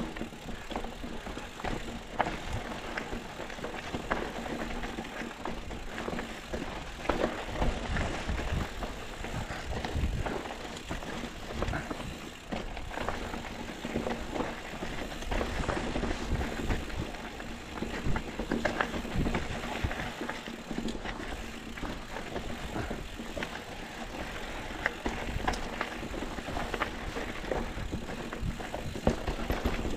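Mountain bike riding over a rough dirt and rock trail: continuous tyre and wind noise with frequent rattles and knocks from the bike.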